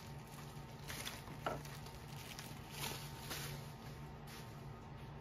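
Bubble wrap crinkling in a few short bursts as a diecast model truck is unwrapped and handled, over a faint steady low hum.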